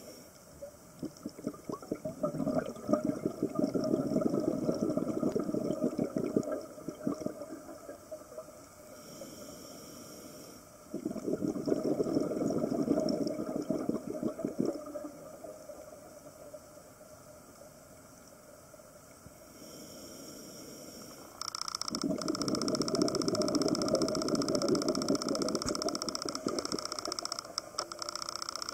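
Scuba diver's regulator breathing underwater: three long bursts of exhaled bubbles gurgling and crackling, with quieter pauses between them for the in-breaths. A steady hiss comes in about two-thirds of the way through.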